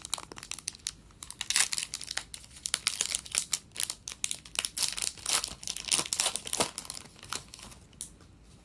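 Foil wrapper of an Upper Deck hockey card pack crinkling and tearing as it is opened by hand: a dense run of sharp crackles that stops about eight seconds in.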